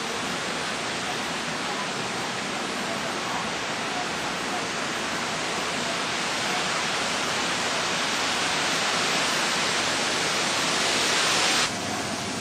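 Heavy tropical-storm rain and wind: a steady rushing hiss that swells louder over several seconds, then cuts off suddenly near the end to a quieter rush.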